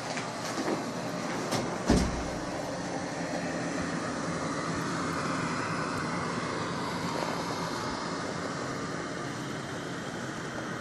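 Steady blizzard wind rushing over the microphone, with a few sharp knocks in the first two seconds, the loudest about two seconds in.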